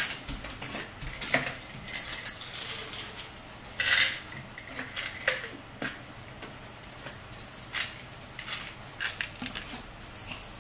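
Plastic pill bottle being opened and handled: scattered clicks and rattles of the cap and pills, busiest in the first few seconds, with the loudest rattle about four seconds in.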